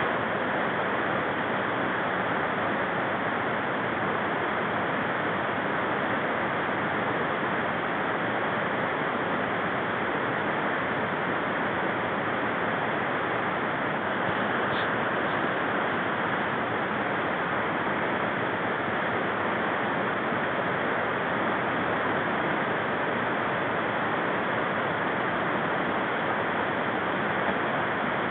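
Steady, even rushing noise that holds at one level without change.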